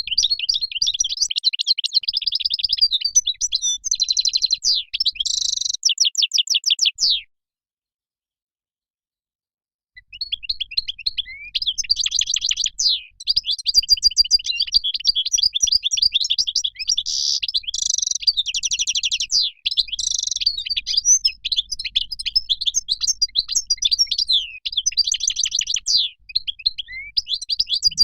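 European goldfinch singing a long, fast twittering song with rapid trills and chirps. It breaks off about seven seconds in for nearly three seconds of silence, then resumes.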